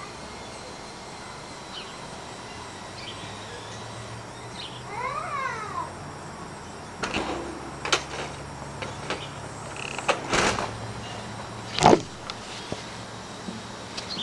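Outdoor background with a steady low hum. A short warbling chirp of quick up-and-down notes about five seconds in, then scattered knocks and bumps, the loudest near twelve seconds, with handling clicks as the camera is picked up at the end.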